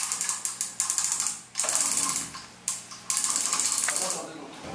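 Hand-operated ratchet hoist clicking rapidly in three runs of about a second each, its pawl ratcheting as it is worked to raise a heavy load of about 100 kg.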